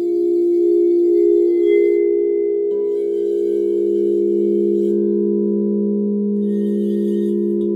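Frosted crystal singing bowls ringing together, several long sustained tones overlapping, with a pulsing beat in the first couple of seconds. About three seconds in, another bowl's tone joins, adding a higher ring.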